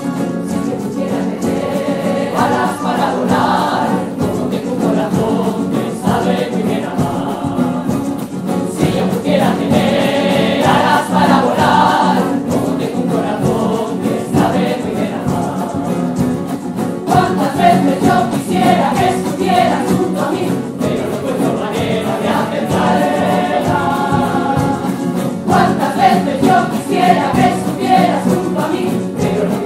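A women's tuna singing a song in chorus to their own strummed Spanish guitars and bandurrias, a massed plucked-string accompaniment under the voices.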